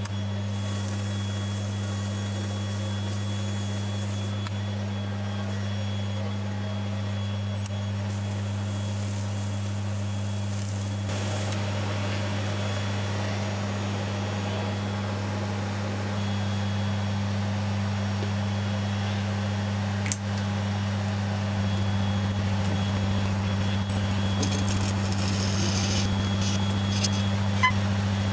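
Wood lathe running steadily: a low electric motor hum with a faint high whine, and light rubbing as a hand works the spinning ash workpiece. A sharp click comes about two-thirds of the way through, and a small knock near the end.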